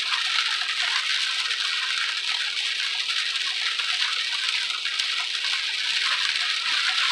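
Heavy rain hitting a moving car, heard from inside the cabin as a steady hiss.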